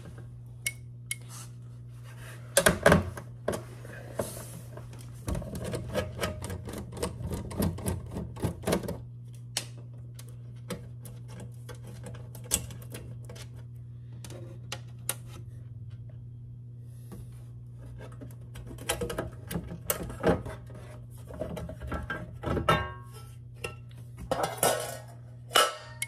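Metal clicks, knocks and rattles of a fire alarm control panel's enclosure being handled as the inner section covering the CPU is unfastened and opened. The sounds come in irregular clusters over a steady low hum.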